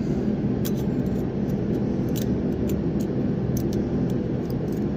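A steady low mechanical drone, with several faint light clicks of the small metal chain-sharpening guide being handled and fitted.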